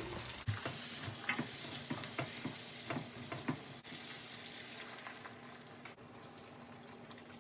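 Vegetables sizzling in a pot while being stirred, a spoon knocking against the pot five or six times in the first few seconds. The sizzle grows quieter in the second half.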